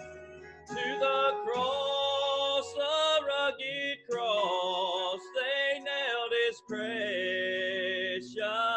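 Gospel hymn music: a melody line with vibrato in short phrases over low sustained accompaniment.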